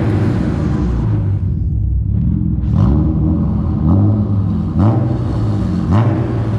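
BMW straight-six car engine on its stock (OEM) exhaust, idling and then blipped about four times in quick succession, each rev rising and falling back.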